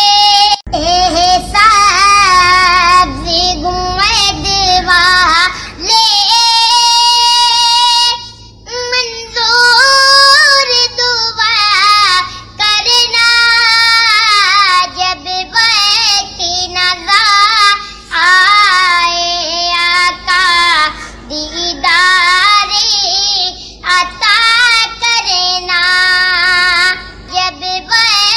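A young boy singing a naat, a devotional Islamic poem in praise of the Prophet, in one high solo voice. The phrases have long held, ornamented notes with brief pauses between them.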